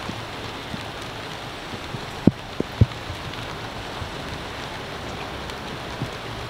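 Steady rain falling on the water and the boat, with scattered drops landing close by. Three heavier drops hit in quick succession a little past two seconds in.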